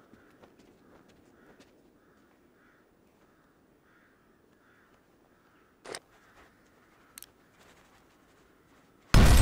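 Hushed stillness with two short sharp clicks about a second apart, then a sudden very loud blast near the end with a long rumbling tail.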